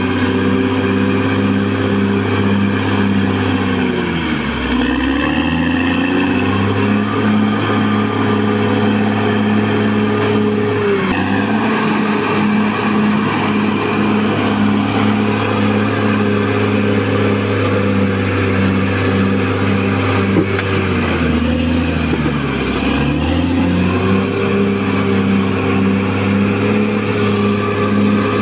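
Caterpillar D6R XL bulldozer's diesel engine running steadily at working revs. Its pitch dips sharply twice, about four seconds in and again past twenty seconds, then climbs back.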